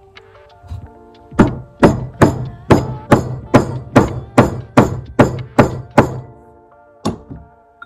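About a dozen evenly spaced hammer blows, roughly two to three a second, each a sharp knock with a short ring, over background music.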